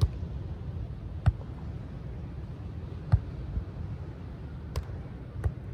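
Beach volleyball rally: five sharp slaps of hands and forearms striking the ball, one every one to two seconds, the loudest about a second and three seconds in, over a steady low background rush.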